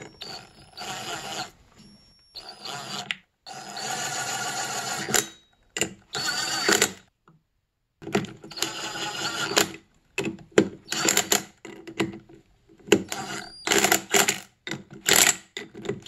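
Cordless power tool turning a 10 mm socket in short trigger bursts, running down the three bolts of a snowmobile flywheel's starter pulley. It runs in bursts of a second or two with pauses between them, and the bursts get shorter and choppier toward the end as the bolts seat.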